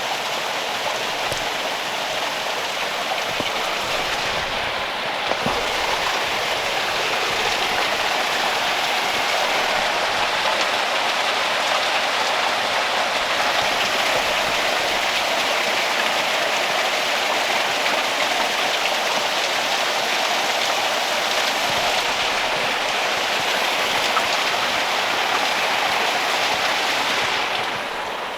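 A small mountain waterfall splashing down over rocks into a pool, making a steady rushing hiss. It grows a little louder about six seconds in and drops back near the end.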